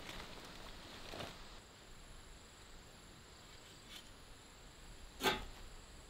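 Large banana leaves rustling as they are pulled off a metal-drum fish smoker. This is followed by quiet, a faint tap about four seconds in, and a single sharp knock near the end.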